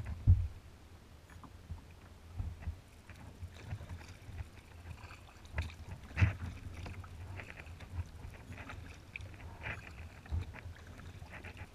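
Small waves lapping and splashing against a kayak's hull, with irregular low thumps, the loudest just after the start, and a few brighter splashes about six and ten seconds in.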